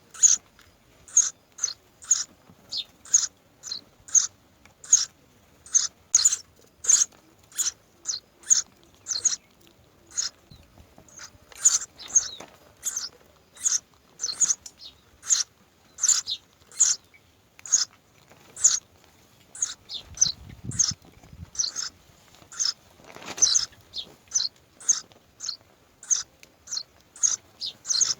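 Myna birds chirping: short, high calls repeated about twice a second without a break. A brief low rumble comes about two-thirds of the way through.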